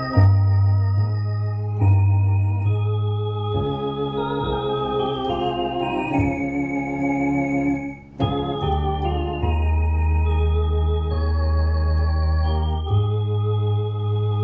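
Two-manual electronic organ playing a hymn in sustained chords over long held bass notes, with a short break about eight seconds in before the closing phrase.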